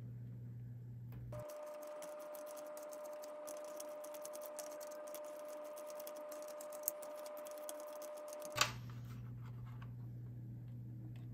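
Small clicks and scratches of a plastic candy-kit stick and tray being handled, with a sharper click near the end.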